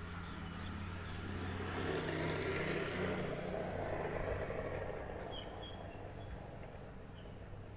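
A vehicle passing by: its noise swells for a couple of seconds and fades away, over a steady low hum.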